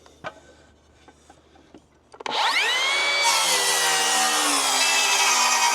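Quiet handling clicks, then a circular saw starts about two seconds in. Its whine drops in pitch and a loud rasp comes in as the blade bites into the wooden rafter, and it goes on cutting steadily.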